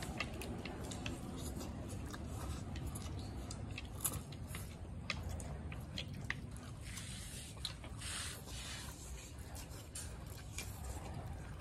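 Several people slurping and chewing Maggi instant noodles, with scattered small clicks of chopsticks against plates.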